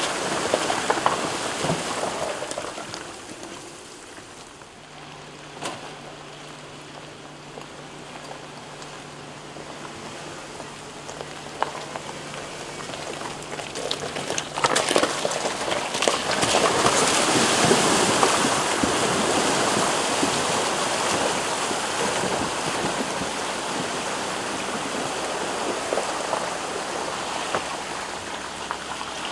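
Rushing, splashing water from a creek, quieter early on, then building to its loudest about two-thirds of the way through. A steady low hum runs under it for about ten seconds in the middle.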